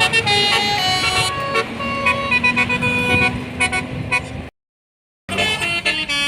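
Basuri telolet bus horn, a multi-tone air horn, playing a melody of quickly changing notes over a low rumble. It cuts off abruptly about four and a half seconds in, and after under a second of silence another telolet melody starts.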